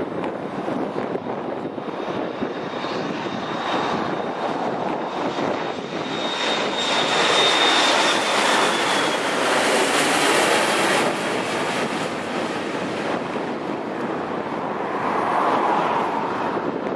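Boeing 727-200 freighter on landing approach, its three Pratt & Whitney JT8D turbofans passing low overhead. A thin high whine drops slightly in pitch as it comes over. The rumble is loudest about halfway through, then eases as the jet moves away toward the runway.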